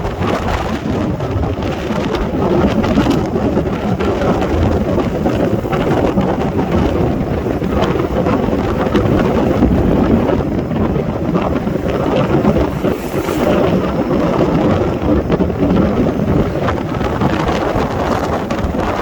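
Strong wind buffeting the microphone: a loud, steady rush of noise with no let-up.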